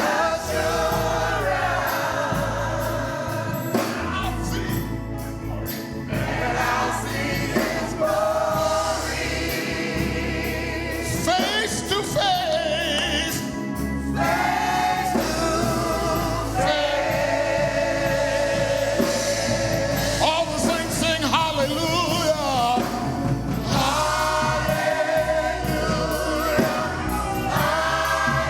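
Gospel choir singing a worship song in long held notes with vibrato, over a steady low musical accompaniment.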